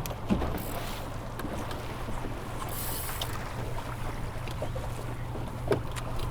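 Boat motor running steadily with a low hum, under wind and water noise, with a few light knocks and two short hisses.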